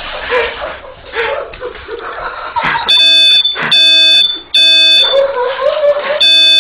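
Electronic alarm beeping: loud buzzy beeps about half a second long, starting about three seconds in, three in quick succession, then a short break before the next.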